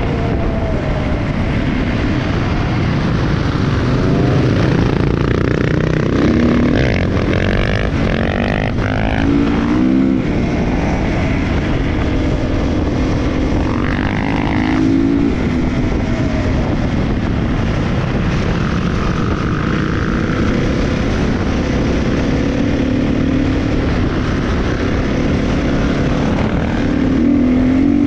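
Enduro dirt bike engines running on the move, the engine pitch rising and falling again and again as the throttle opens and closes, over a steady rushing noise.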